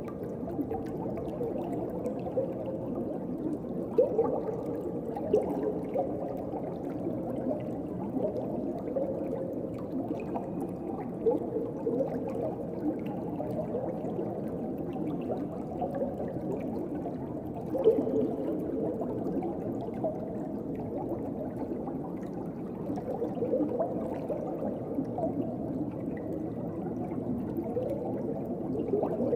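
Underwater ocean ambience: a steady, muffled rush of moving water with continual soft gurgles and bubbling, and a few louder bubbly pops along the way.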